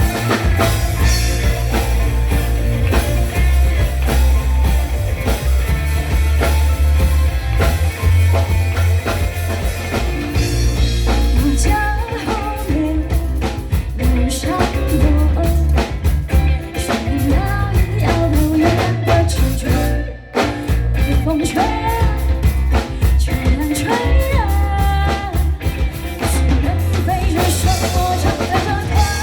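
Rock music with a drum kit and a steady, heavy bass line, a melody weaving above it; the music briefly drops out about two-thirds of the way through.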